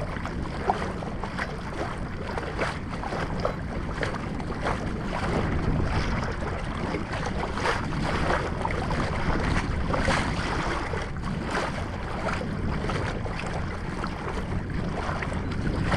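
Wind buffeting the microphone over a steady low rumble, with small waves slapping and splashing irregularly against a moving kayak's hull.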